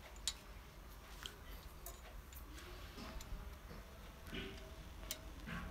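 Faint, scattered metallic clicks and taps from a hand socket wrench and extension being worked on the cylinder head bolts during their final tightening.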